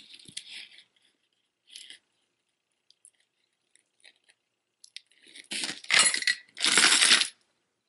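Costume jewelry handled by hand: faint clicks of silver-tone metal beads, then two louder bursts of jangling, each under a second, near the end as pieces are moved and picked up.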